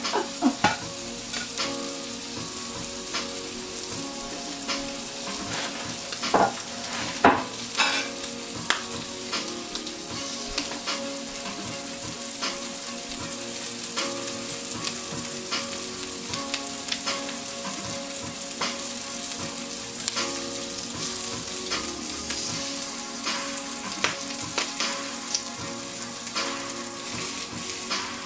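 Three pieces of bacon sizzling in a hot nonstick frying pan on medium heat: a steady hiss dotted with crackles, and a few louder pops about six to eight seconds in.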